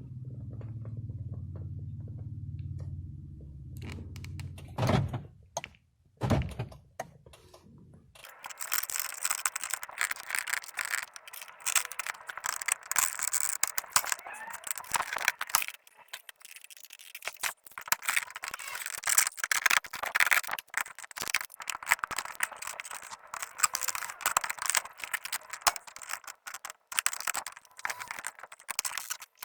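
A low steady hum, then two sharp knocks about five and six seconds in. After that comes a long run of irregular clicking, clattering and rattling, as of hand work on a car door's parts and fasteners.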